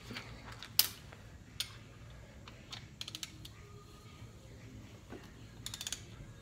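A ratchet wrench clicking in short runs of rapid clicks, with a few single sharp metallic clicks, the loudest about a second in.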